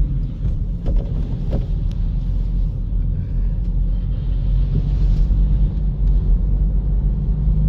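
Car driving along a snowy street, heard from inside the cabin: a steady low rumble of engine and road noise, with a couple of light knocks about a second in.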